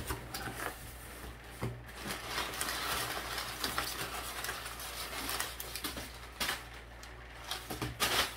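Crumpled brown kraft packing paper rustling and crinkling as it is pulled out of a cardboard box, with a run of sharp crackles and a few louder crunches near the end.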